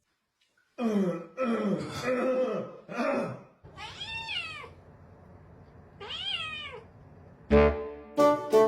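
Cat yowling and meowing: about two and a half seconds of drawn-out cries, then two separate meows, each rising and falling in pitch. Saxophone music starts near the end and is the loudest sound there.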